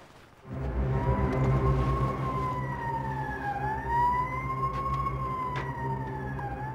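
Emergency vehicle siren wailing, its pitch rising and falling slowly about every three seconds, over a low engine rumble; both come in suddenly about half a second in.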